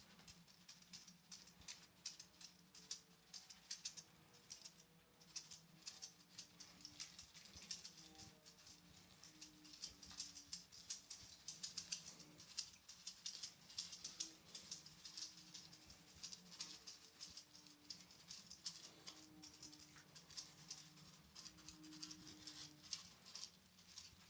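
Roomba robot vacuums running over a confetti-covered floor: a faint steady motor hum under dense, rapid ticking and pattering as confetti is swept up.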